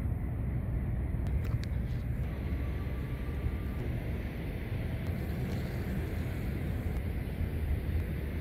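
Steady low outdoor rumble, mostly deep bass, with a few faint clicks early on.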